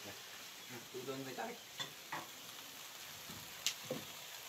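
Hot oil with fried bits sizzling faintly in a frying pan as it is lifted off the stove and poured into a bowl, with one sharp click about three and a half seconds in.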